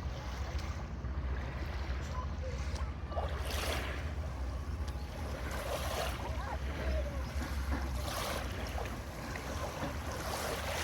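Wind buffeting the microphone over lapping river water, a steady rumble with a few stronger gusts.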